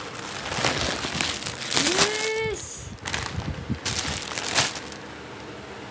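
Plastic chocolate wrappers and shiny packaging crinkling and rustling as a hand rummages through a pile of candy bars. A brief drawn-out voice cry comes about two seconds in.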